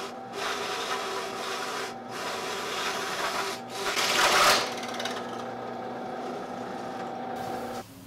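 Benchtop drill press boring holes through a wooden board: the motor hums steadily while the bit cuts with a rasping, grinding sound. The cutting is loudest a little past the middle, with brief breaks in between, and the sound cuts off just before the end.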